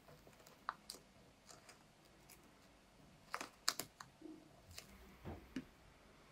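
Blue masking tape being handled and pressed along the leather of a trainer: faint scattered crackles and clicks, with a few sharper clicks about halfway through.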